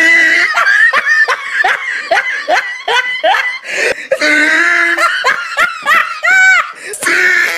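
A person laughing hard: a rapid run of high-pitched ha's, broken twice by longer drawn-out whoops of laughter.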